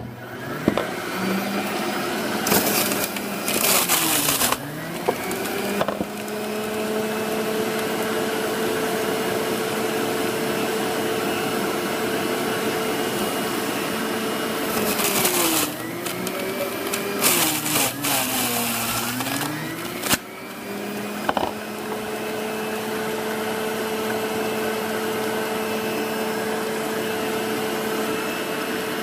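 Centrifugal juicer's motor running at high speed. Its pitch sags and recovers several times under load as carrots and kale are pushed into the feed chute, with loud bursts of grinding as they are shredded.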